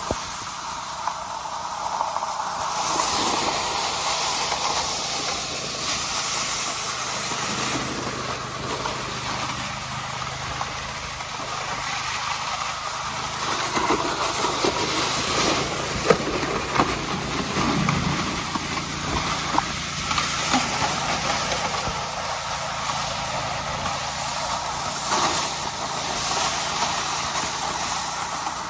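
A car driving over the frozen sea: steady hissing tyre noise on the ice with a low engine hum underneath, and a few sharp clicks about halfway through.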